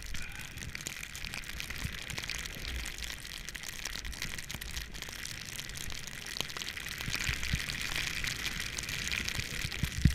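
Snowboard sliding through fresh powder, heard from a GoPro: a steady hiss with many fine crackling ticks and a low rumble. Near the end there is a single sharp knock as snow sprays up around the rider.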